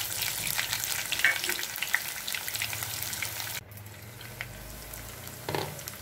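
Sliced onions sizzling in hot oil in a kadai, crackling as a wooden spatula stirs them. About three and a half seconds in, the sizzle suddenly drops to a quieter, duller hiss, with a knock near the end.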